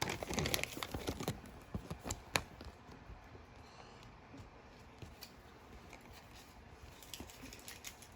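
Toy packaging being handled: paper and plastic wrappers rustling and crinkling, with a quick run of small crackles and clicks over the first couple of seconds, then only faint occasional ticks.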